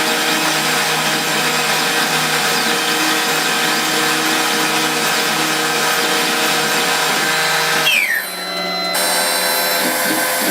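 Powered machine tool running steadily with a constant whine and a pulsing hum. About eight seconds in, the sound dips and briefly falls in pitch, then a different steady machine sound carries on.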